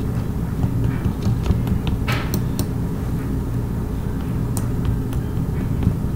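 A spoon patting and scraping damp dirt in a plastic container, with a few light clicks against the plastic, over a steady low hum.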